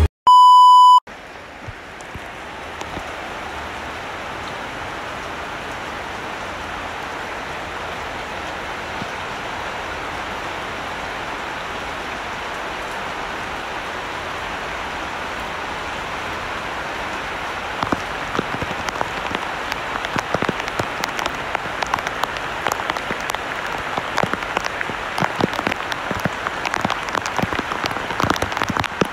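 A short, loud electronic beep right at the start, then heavy rain falling steadily through garden trees and leaves as an even hiss. From a little past halfway, sharper ticks of big drops hitting nearby leaves grow more frequent.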